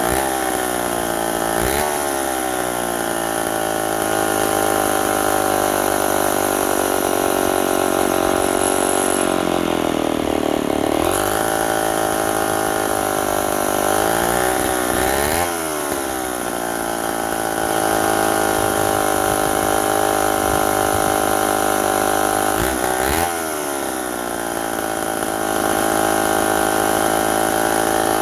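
Vintage Homelite 770D 95cc direct-drive two-stroke chainsaw engine running loudly, its speed dipping and picking back up several times: about 2, 10, 15 and 23 seconds in.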